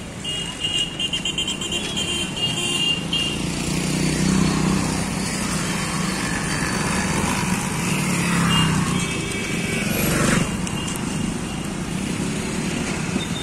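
Street traffic with motorcycle and scooter engines passing close by, louder through the middle of the stretch. A brief sharp knock sounds about ten seconds in.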